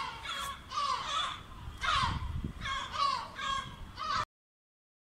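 Repeated harsh animal calls, roughly one a second, several falling in pitch, which stop abruptly about four seconds in.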